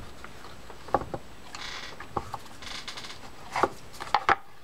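Light clicks and taps of a screwdriver working a short screw into the reel seat of a Penn Senator 4/0 reel, with two short spells of rubbing and a few knocks as the metal reel is handled and turned over on the bench mat.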